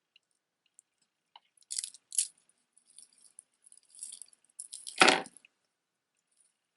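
Costume jewelry clinking and rattling as it is handled: bead and chain pieces jangling lightly in short bursts. About five seconds in comes a louder, heavier clatter, as of a piece knocking against the table.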